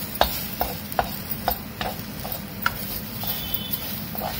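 Wooden spatula stirring coriander leaves and tamarind in a metal kadai, knocking and scraping against the pan about twice a second.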